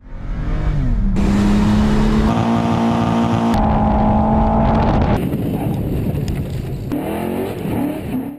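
Car engine at high revs while drifting, with tyre noise: the pitch falls at first, holds steady at high revs for a couple of seconds, then the sound changes abruptly several times and the revs rise again near the end.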